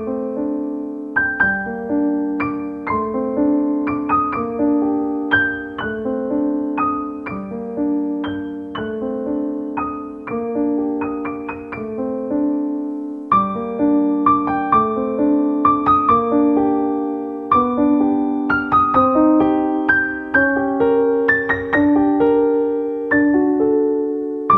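Background piano music: notes and chords struck in an even, flowing pattern, each ringing and fading into the next.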